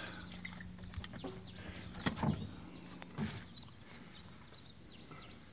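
Birds chirping in the background, many quick descending chirps, over a steady low hum. A few brief knocks come about two and three seconds in.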